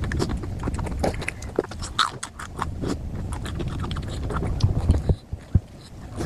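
Close-miked chewing and wet lip-smacking while eating puri with spicy potato curry: a quick, irregular run of mouth clicks and smacks, a few louder ones near the end.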